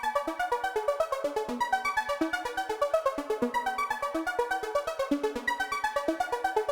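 Synthesizer music: short keyboard-like notes over a fast, even ticking pulse of about seven to eight beats a second.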